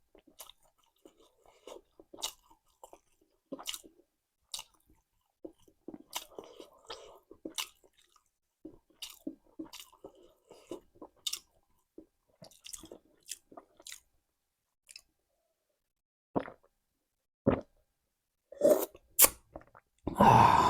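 A person chewing a mouthful of food close to the microphone, with wet mouth clicks and light crunches at an uneven pace. The chewing stops about two-thirds of the way through, followed by a few louder knocks near the end.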